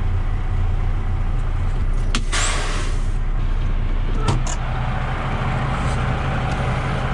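Semi truck engine running steadily at low speed, with a short hiss about two seconds in and a few clicks around four seconds in.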